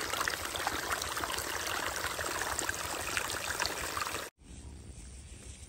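Shallow water rushing and splashing over a low step in a muddy field channel, a steady gushing that cuts off abruptly about four seconds in, leaving a much quieter background hiss.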